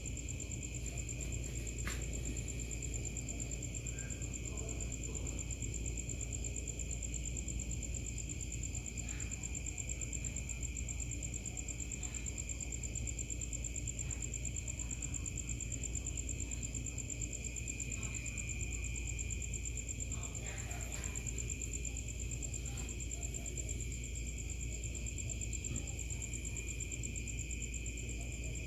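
Night insects trilling steadily in two continuous high tones, over a low steady rumble, with a few faint ticks.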